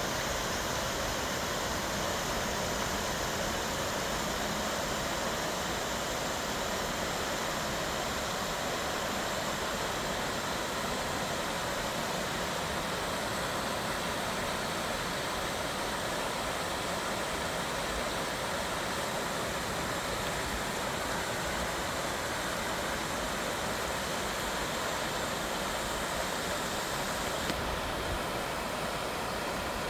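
A stream running full after rain: an even, unbroken rush of flowing water.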